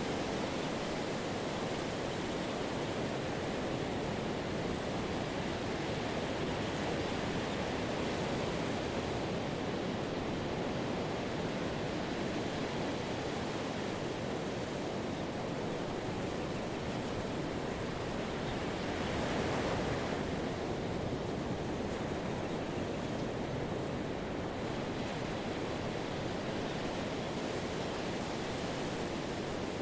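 Pacific surf breaking and washing up a sandy beach: a steady rush of waves, with one wave swelling a little louder about two-thirds of the way through.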